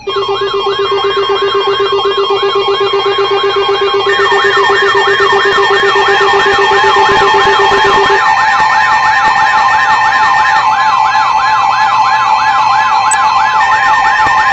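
Emergency Alert System alarm on a weather/FM radio broadcast: a loud steady two-tone attention signal with a fast siren-like warble sweeping up and down about three times a second on top of it. A lower steady tone drops out about halfway through.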